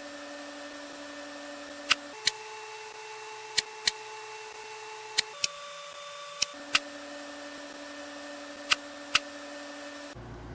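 Steady electronic tones that move to a new set of pitches every couple of seconds, with sharp clicks in pairs about a third of a second apart, like a camera shutter, five pairs in all.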